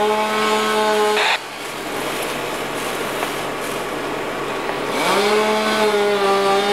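A small engine running at high, steady revs, which cuts out about a second in and revs back up to the same pitch near the end.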